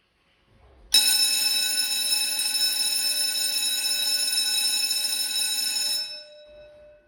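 Electric school bell ringing for about five seconds, starting abruptly a second in and cutting off, with the gong's tones dying away briefly after it stops.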